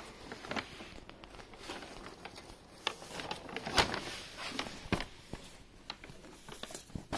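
A cat scrambling about inside a paper shopping bag, the paper rustling and crackling, with a few sharper taps and clicks, two clearest near the middle.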